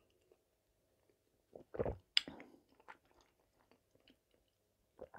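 Close-miked mouth sounds of a person drinking cherry compote: a swallow about two seconds in, then a sharp click of the lips and a few small mouth clicks, with another swallow and smack near the end.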